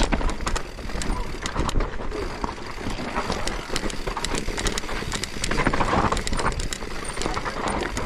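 Mountain bike riding fast over a rough dirt trail: a steady rush of tyre and trail noise with many quick clicks and rattles from the bike, and a low rumble of wind on the microphone.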